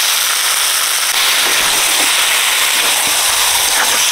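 Raw chicken pieces sizzling in hot oil with onion and ginger-garlic paste in a karai: a steady, even sizzle.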